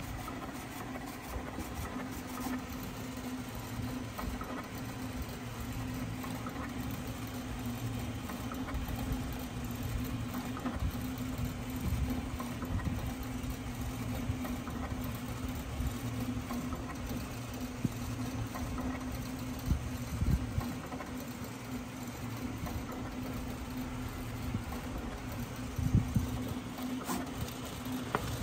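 SAGA A3 Pro decal die-cutting plotter running: a steady motor hum with the whir and scattered clicks of the blade carriage moving over the sticker sheet.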